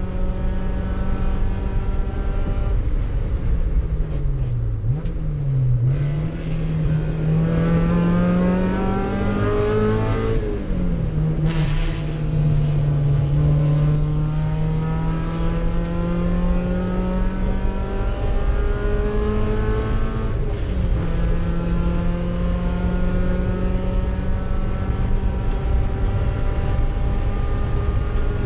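Mazda Miata race car's four-cylinder engine heard from inside the cabin under racing load. It dips sharply in pitch twice about five seconds in and then climbs steadily, drops at a gear change about ten seconds in, and holds a steady high note for the rest, with one brief dip about twenty seconds in.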